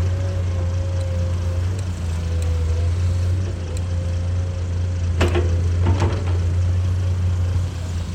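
Komatsu PC210 hydraulic excavator running steadily at work, a low engine hum with a wavering whine above it. Two short knocks, about five and six seconds in, are the bucket or machine clanking as it digs.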